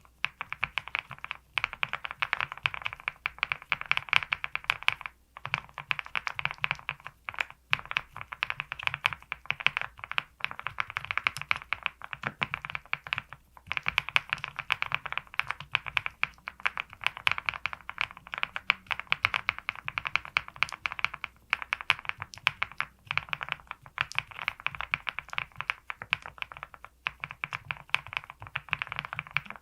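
Fast, continuous typing on a VARO V75 Plus custom keyboard fitted with lubed linear XY studio Bsun X switches, a PC plate, full foam and PBT keycaps: a dense run of keystrokes broken by a few short pauses.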